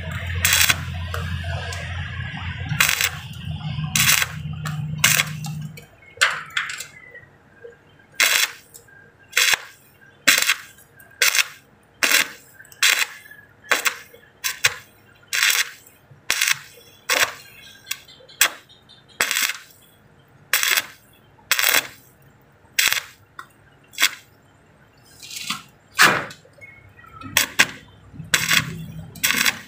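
Stick (arc) welding on a car's steel door frame: a steady stretch of arc over a low hum for about the first six seconds, then short crackling bursts of arc, about one a second.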